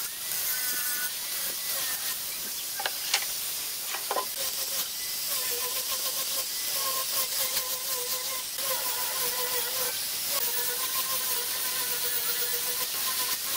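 Angle grinder fitted with a sanding disc running against the end grain of a pine tabletop's curved edge: a steady motor whine over the hiss of abrasive on wood, its pitch wavering slightly as the disc is worked along. There are a couple of sharp ticks about three and four seconds in.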